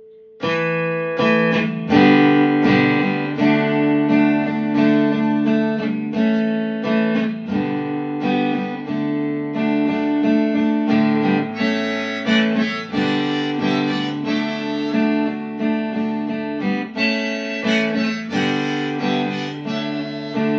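Instrumental intro of a country-folk song: acoustic guitar strumming with harmonica, coming in about half a second in.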